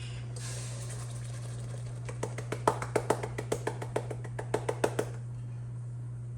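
A fast, uneven run of sharp knocks and taps, starting about two seconds in and stopping about five seconds in, as a container is shaken and tapped to empty its contents into the pot. A steady low hum runs underneath.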